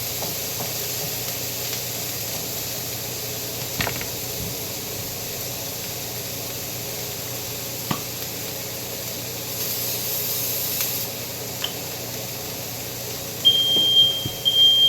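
Meat sizzling in a frying pan, a steady hiss with a few light clicks. Near the end a smoke alarm starts sounding loud, high beeps about one a second: a false alarm, with no real fire.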